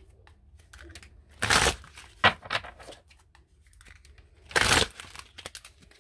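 Tarot cards being shuffled and handled: two short papery shuffling bursts, about a second and a half in and again near five seconds, with a sharp card snap and a few lighter clicks between.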